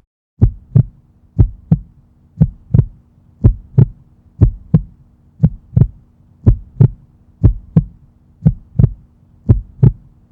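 A heartbeat, a steady lub-dub double thump about once a second, ten beats in all, over a faint steady hum.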